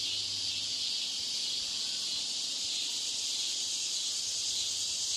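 Steady high hiss of environmental background noise mixed into the listening-test recording, with no breaks or changes.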